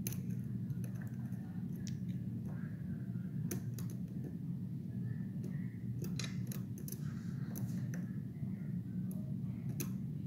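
Light, irregular clicks and ticks of a lock pick and tension wrench working the pin stack of an ISEO R6 euro cylinder, over a steady low hum.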